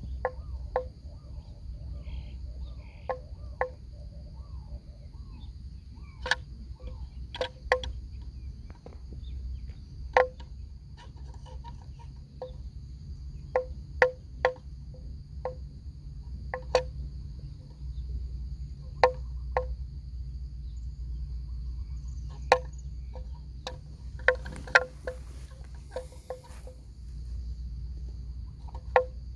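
Bell worn by a grazing water buffalo clonking irregularly as the animal moves, single knocks and quick pairs a second or more apart, each with the same hollow note. A steady high insect drone and low wind rumble run underneath.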